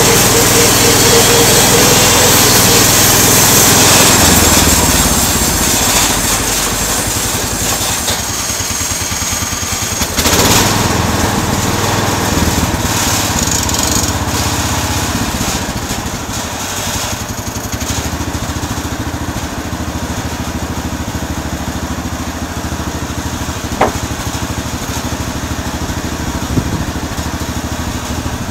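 Small gasoline engine of a homemade bandsaw mill running steadily, louder for the first few seconds and then settling a little lower. A single sharp click sounds late on.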